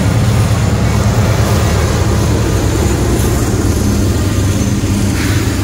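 Lead GE diesel-electric locomotives of a freight train passing close by, their diesel engines running with a loud, steady low drone.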